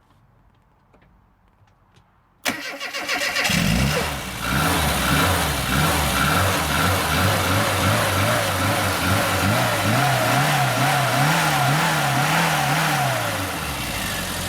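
A car engine cranking on the starter about two and a half seconds in, catching a second later, then being blipped so its pitch rises and falls over and over before it settles back to idle.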